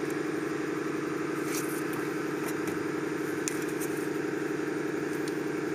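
Chrysler 3.8 L V6 idling steadily, heard close up in the engine bay, with a few faint clicks over it.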